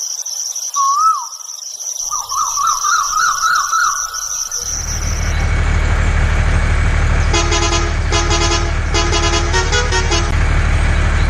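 A steady high cricket trill with warbling chirps gives way, about four and a half seconds in, to a tractor engine running steadily. Over the engine a multi-tone horn honks in four short bursts.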